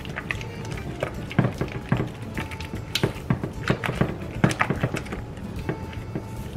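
A spatula stirring a thick cream cheese mixture in a glass mixing bowl, with irregular knocks and scrapes of the spatula against the glass.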